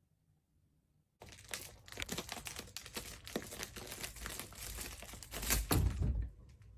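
After about a second of near silence, plastic sheeting wrapped over a chair back crinkles and crackles as a cat clambers on it, ending in a heavy thump near the end as the cat jumps off.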